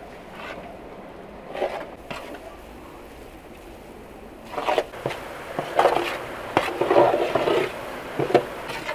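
A metal spoon stirring and scraping flour being toasted in butter in a large aluminium pan. It is faint at first, then louder scraping strokes come from about four and a half seconds in.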